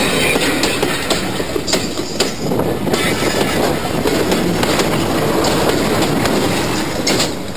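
Class 55 Deltic diesel locomotive, with twin Napier Deltic two-stroke engines, working hard at the head of a train, heard from a coach window. Its engine and the wheels make a loud, steady rumble, with wheels clicking over rail joints now and then and a louder burst near the end.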